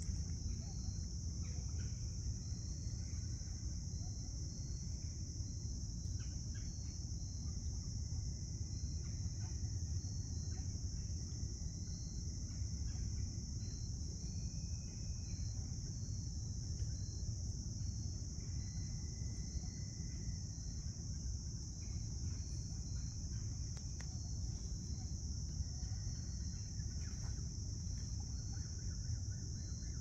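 Steady chorus of insects: a continuous high trill with faint regular pulses, over a low, even rumble.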